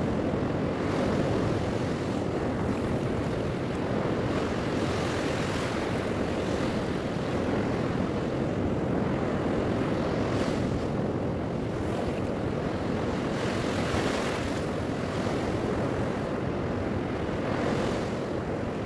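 Ocean surf washing onto a flat sandy beach, a steady rushing that swells now and then as waves break, with wind buffeting the microphone.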